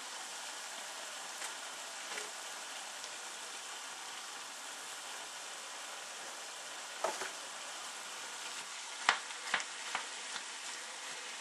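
Ground beef and mushrooms sizzling steadily in a frying pan, with a few sharp knocks of a utensil against the pan in the second half.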